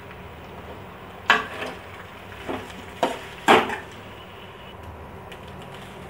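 Metal spoon knocking against a stainless steel kadhai while stirring rice, five or so sharp clinks between about one and three and a half seconds in.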